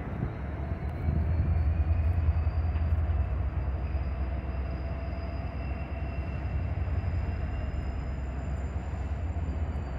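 Diesel-electric locomotives running, a steady low engine drone that gets louder about a second in, with a faint high whine that rises slightly and then sinks back.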